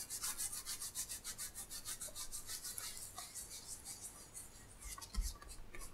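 Akapad Sensitive White Sponge rubbed quickly back and forth over paper, a faint, rhythmic scratchy scrubbing at about five strokes a second, as it dry-cleans graphite dust off the sheet.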